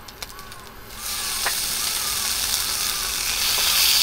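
Bacon-wrapped dango skewers start sizzling in a hot frying pan about a second in, the frying hiss growing louder, after a few light clicks.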